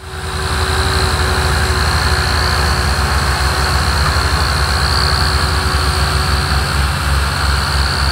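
Several diesel tractor engines (Massey Ferguson, Ford and Ghazi) working hard together as one steady, low, fast-pulsing drone, straining to pull a sugarcane-laden trolley out of mud. A steady high whine sits above it.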